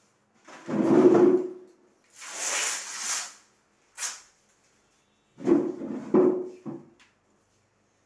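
Hook-and-loop (Velcro) strips ripping apart in several pulls as a mosquito net is peeled off a window frame, with a rustle of the net fabric between the rips.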